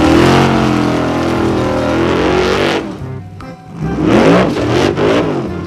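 Off-road rock buggy's engine revving hard on a steep dirt climb, its pitch repeatedly rising and falling, in two loud spells with a short lull about three seconds in.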